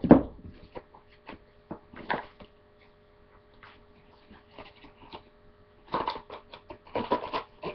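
Grooming brushes and tools being handled and packed into a grooming bag: a loud thump at the start, then scattered knocks and rustling, growing busier near the end.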